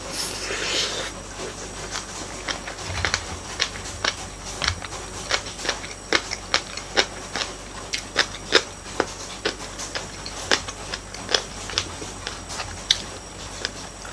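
Close-miked eating: a mouthful of rice and side dishes taken in at the start, then wet chewing clicks and smacks about two to three a second. Heavy rain makes a steady hiss behind.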